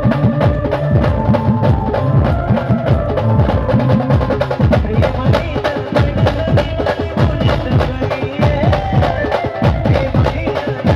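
Indian band playing an instrumental passage: fast, dense drumming with sliding low drum tones under a held melody line.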